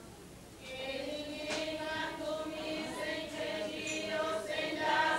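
Several voices singing together in slow, long-held notes, starting after a short lull about a second in.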